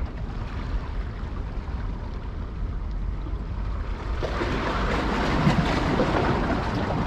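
Steady outdoor noise of wind and water by the sea, swelling into a louder rush about four seconds in.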